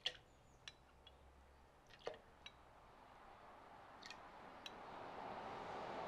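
Balsamic vinegar being measured out by the tablespoon: about six faint clinks of the spoon against the bowl or bottle, and a soft pouring hiss that grows louder over the second half.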